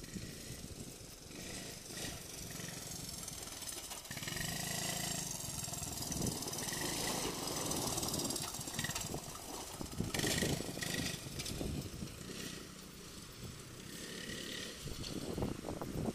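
Honda ATC185S three-wheeler's single-cylinder four-stroke engine running under riding, its note rising and falling as the throttle changes, growing louder near the end.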